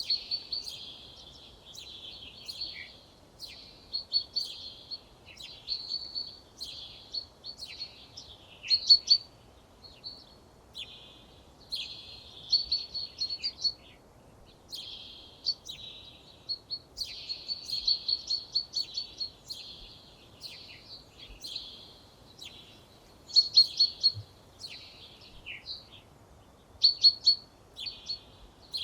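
A songbird singing a run of short, high-pitched phrases, each a second or two long, with brief pauses between them.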